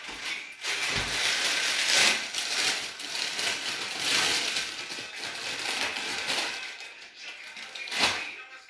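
Rustling and crinkling as a bunch of fresh curly parsley is handled and pulled apart, with a short knock about a second in and another near the end.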